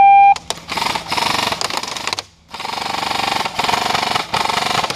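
Airsoft electric rifles firing long full-auto bursts, a rapid rattle, with a half-second pause just after the middle before the firing resumes. At the very start a loud held high note cuts off.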